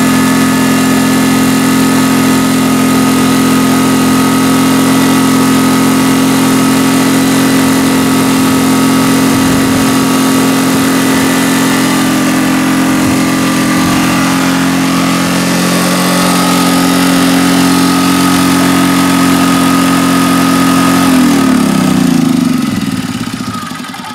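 Yamaha EF2800i inverter generator's small engine running steadily on gasoline vapor drawn through a hose from a jug, not on liquid fuel. A little past twenty seconds in its pitch falls, and it winds down and dies away as the engine stops.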